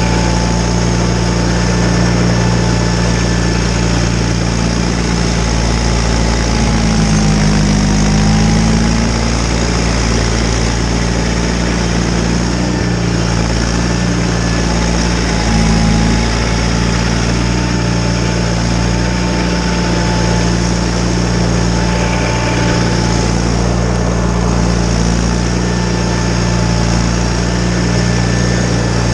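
John Deere 318 garden tractor's two-cylinder engine running steadily with the Model 49 snowblower, with a thin steady whine above it. About seven seconds in the engine note dips in pitch and grows louder for a second or two, then settles back.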